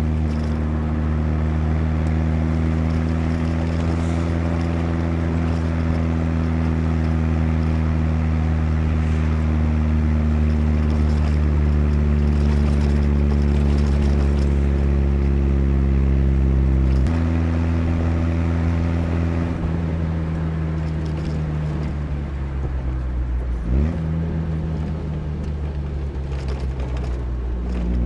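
Chevrolet Chevette's 1.4-litre eight-valve four-cylinder engine pulling the car along, its note steady and easing slowly lower, with a sudden drop in engine note a little past halfway, another brief dip and jump about 24 seconds in, and a step back up near the end.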